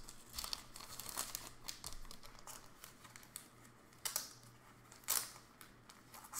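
Plastic card sleeves crinkling and rigid plastic toploaders clicking as trading cards are handled and set down on a table, with two sharper clacks in the second half.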